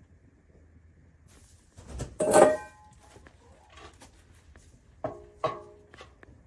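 Metallic clanks that each ring briefly: one loud clank about two seconds in, then two lighter ones a little after five seconds, over a low steady hum.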